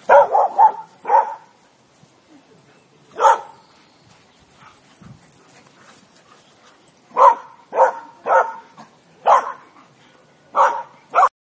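Dogs barking in short, sharp barks while chasing each other in play: a quick run of four barks at first, a single bark about three seconds in, then barks about once a second over the last few seconds, cut off abruptly at the end.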